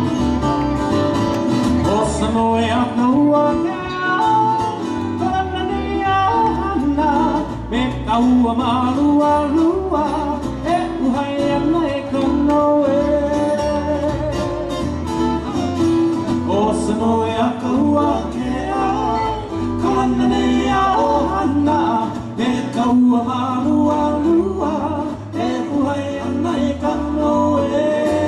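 Live Hawaiian trio playing: strummed guitars and a bass guitar with a man singing over them.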